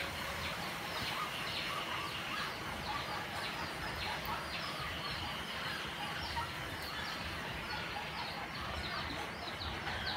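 Small birds chirping over and over, many short high chirps, over a steady background hiss.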